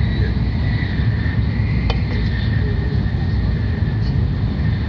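Shinkansen train running at speed, heard inside the passenger cabin: a steady low rumble with a faint steady high whine over it. A single short click about two seconds in.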